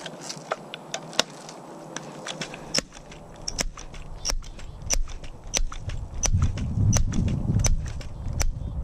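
Footsteps: sharp clicking steps, close together at first, then at an even walking pace of about one every two-thirds of a second. A low rumble builds under them in the second half.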